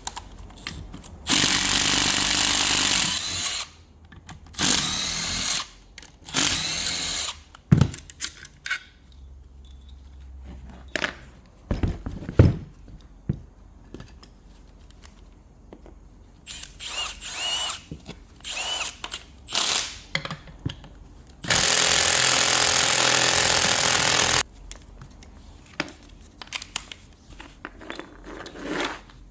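A handheld power tool run in short bursts of one to three seconds, the longest near the end, with clicks and knocks of metal parts being handled between the bursts, during work on a car alternator.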